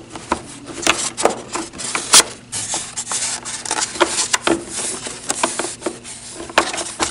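Harness waist buckle and strap of an infant car seat being threaded through a slot in the seat shell, with the quilted fabric upholstery rubbing against it: a run of rubbing and scraping with sharp clicks and knocks, the loudest about two seconds in.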